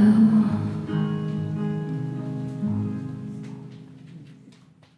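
Background music with held, changing notes, fading out over the last two seconds.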